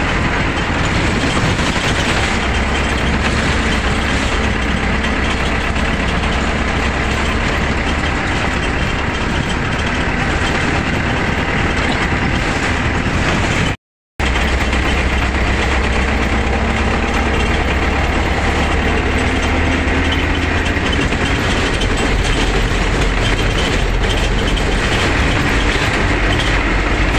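Local bus heard from inside the driver's cab while driving: a steady engine drone with road noise, cut by a split second of silence about halfway through.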